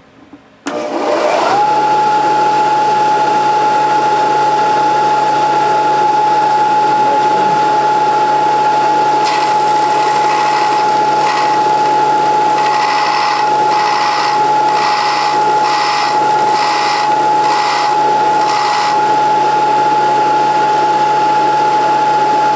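Vertical belt grinder switched on about a second in: its motor whine rises briefly, then holds a steady pitch. From about nine to nineteen seconds a snapped drill bit is pressed against the abrasive belt in about ten short, scratchy grinding passes, cutting a new point on the bit.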